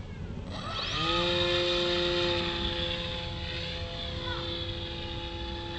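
Motor and propeller of a radio-controlled model plane spinning up with a short rising whine about a second in, then running at a steady pitch in flight. Wind rumbles on the microphone underneath.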